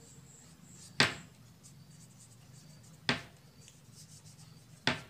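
Felt-tip marker writing on paper, with three sharp clicks about one, three and five seconds in, the first the loudest.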